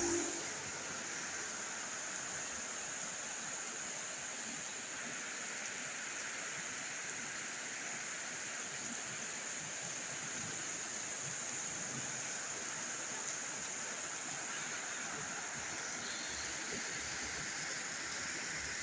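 Heavy rain falling steadily, an even noise that holds the same level throughout.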